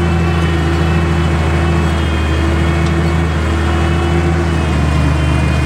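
Tractor diesel engine running steadily, heard from inside the cab, its exhaust pipe cut short. The engine note shifts slightly near the end.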